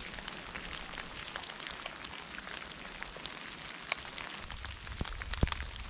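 Light rain falling on wet fallen leaves: a steady hiss with many scattered drop ticks. About four and a half seconds in, a low rumble comes up with a couple of soft thumps.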